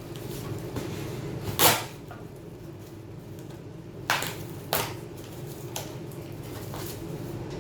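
A few sharp clicks and taps from handling small tools and parts while taking a laptop apart, the loudest about a second and a half in and two more a few seconds later, over a steady low hum.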